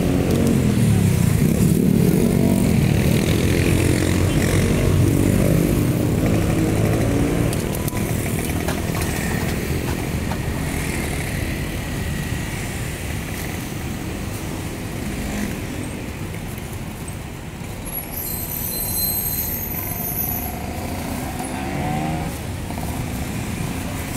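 Street traffic with motor vehicle engines passing close by. The loudest passes in the first few seconds, its pitch sliding up and down, and another passes near the end. A brief high squeal comes about nineteen seconds in.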